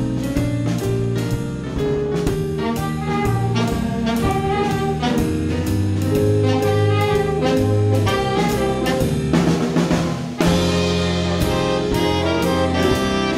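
Jazz saxophone section playing a tune over electric bass, keyboard and drum kit, with the drums keeping a steady cymbal beat. About ten seconds in, a short cymbal wash leads into a louder full-band passage.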